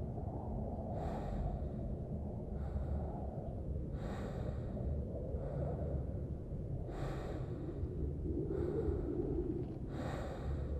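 Heavy, rhythmic breathing, about one breath every second and a half, over a low steady rumble.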